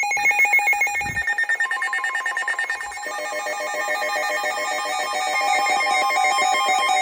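Emergency Alert System alert tones: loud electronic tones at several pitches, pulsing rapidly like a ringing bell, with the pattern changing and filling out about three seconds in.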